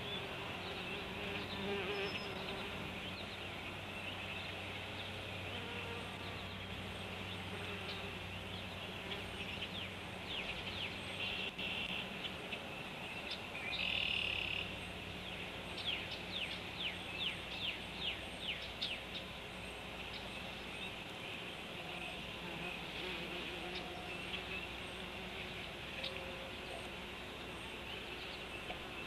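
Steady buzzing of summer insects, with a faint low hum underneath. About halfway through comes a quick run of short, high chirps lasting a few seconds.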